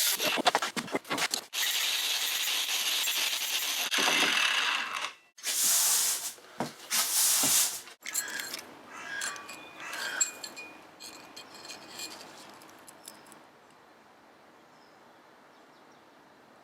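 Several long, loud rasping strokes of a hand tool working wood, each a second or two long, in the first half. These give way to quieter scrapes and light knocks that die away.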